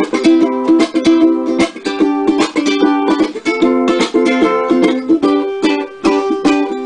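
Ukulele strummed in chords, stroke after stroke in a steady rhythm.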